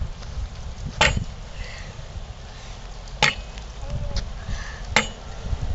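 Canal lock paddle gear being wound up with a windlass, its ratchet pawl clicking sharply three times, about every two seconds, over a steady low rumble.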